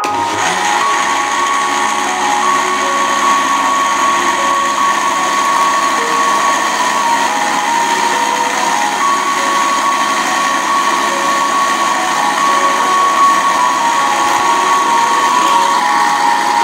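Electric countertop blender running steadily, churning raw mango pulp and liquid in its glass jar; the motor starts abruptly at the very beginning.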